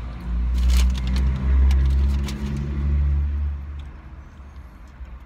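Low engine rumble of a motor vehicle, heard from inside a parked car. It swells in the first second and fades out about four seconds in.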